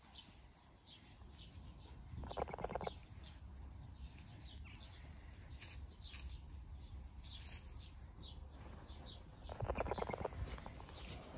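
Small birds chirping again and again in the background, with two short, rough, buzzy sounds, one about two seconds in and one near the end.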